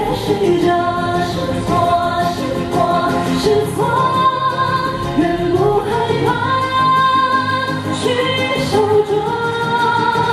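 A male pop singer singing in a high voice over instrumental backing, holding some notes long.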